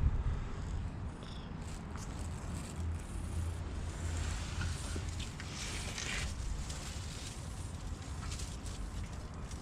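Cat purring, a steady low rumble, with a stretch of soft rustling hiss about halfway through.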